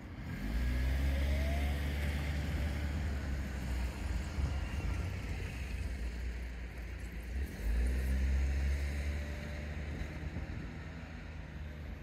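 Motor vehicle engines running and accelerating, twice: a low rumble rising in pitch starts about half a second in, and a second one about seven and a half seconds in, each fading over a few seconds.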